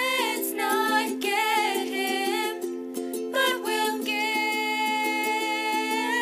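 Ukulele chords strummed under girls' singing, ending on one long held note in the second half.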